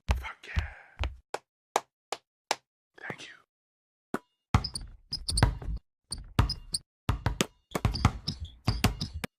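A rapid, uneven series of sharp knocks and thuds, with a gap of about a second a little before the middle.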